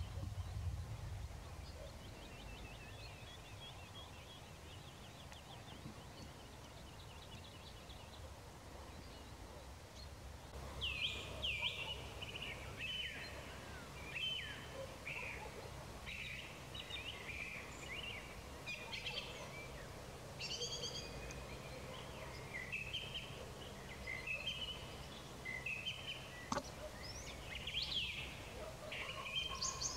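Evening songbirds singing. A faint, fast trill carries on for the first several seconds. From about ten seconds in come many overlapping chirps and song phrases, over a low steady background rumble.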